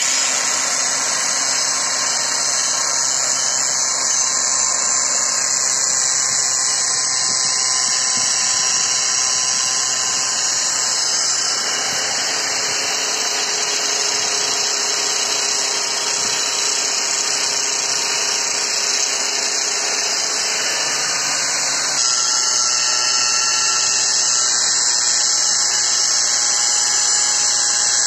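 Electric angle grinder running steadily with its disc pressed against a rusty brake disc on the car's hub, grinding the rust off the braking surface: a loud, continuous whine and grinding rasp that stops abruptly at the end.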